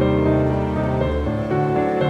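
Background music: soft piano-led instrumental with sustained keyboard chords.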